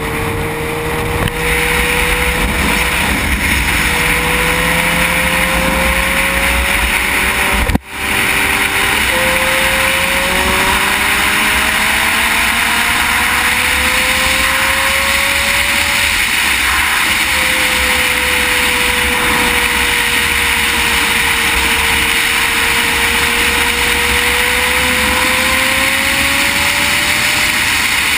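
Heavy wind rush on a motorcycle-mounted camera at road speed, with the engine note of a 2008 Honda CBR600RR's inline-four cruising underneath, its pitch rising and falling slowly. The sound cuts out for a split second about eight seconds in.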